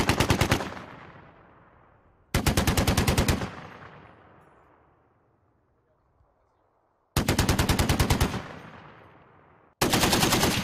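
Browning M2 .50 caliber heavy machine gun firing short bursts of about a second each, rapid evenly spaced shots that echo away after each burst. One burst is ending as the sound begins, and three more follow.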